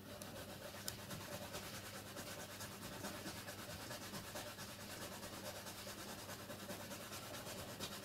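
Rapid faint clicking, about five or six clicks a second, over a steady low electrical hum; the clicking starts and stops abruptly.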